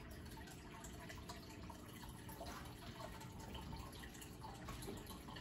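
Aquarium water bubbling and trickling faintly: many small, irregular drip-like plinks from the tank's rising air bubbles and moving water, over a steady low hum.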